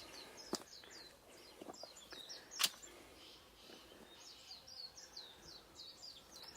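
Small birds chirping: runs of short, high, downward-sweeping chirps, thickest in the second half. Two sharp clicks cut through, the louder one about two and a half seconds in.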